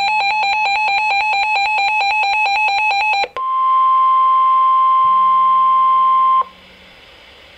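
Emergency Alert System alert tones: a fast electronic beeping, several beeps a second, for about three seconds. After a brief break comes a single steady tone, the roughly 1 kHz weather-radio warning alarm tone, held for about three seconds before it cuts off, leaving a faint hum.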